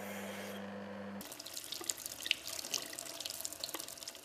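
A steady low hum, then from about a second in, tap water running and splashing over a hand-held sawn rock sample, with scattered drips and splashes.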